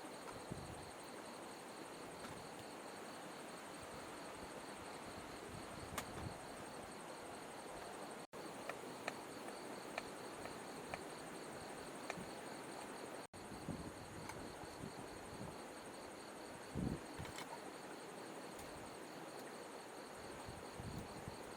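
Insects trilling in a fast, even pulsing rhythm over the steady hiss of flowing river water, with a few faint clicks and one soft knock. The sound cuts out for an instant twice.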